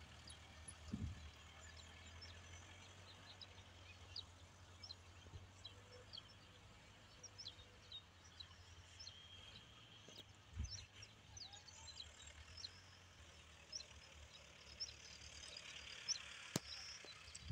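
Near-silent field ambience: the faint low drone of a distant Massey Ferguson tractor's diesel engine, fading after about ten seconds, under scattered high bird chirps, with one sharp click near the end.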